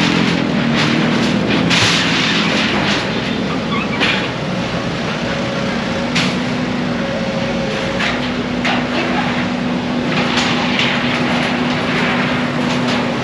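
Heavy machinery engine running steadily, with repeated clattering and knocking of breaking debris from the demolition.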